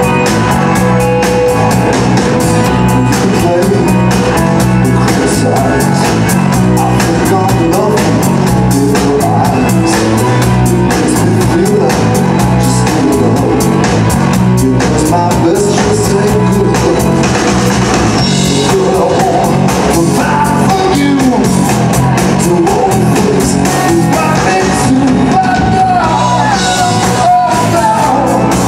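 Live rock band playing at full volume: a steady drum-kit beat under electric bass and electric guitars, with a lead vocal over it.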